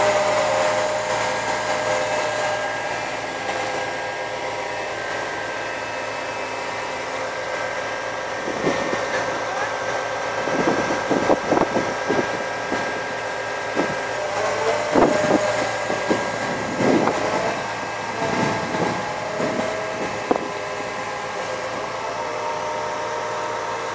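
MAN TGA truck-mounted CIFA concrete pump running with a steady machine drone, broken by a series of irregular knocks and clanks from about nine to twenty seconds in.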